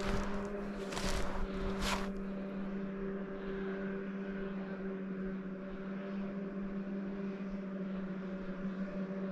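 Snowshoes crunching into powder snow, three steps in the first two seconds, then the walking stops. A steady motor hum drones underneath throughout.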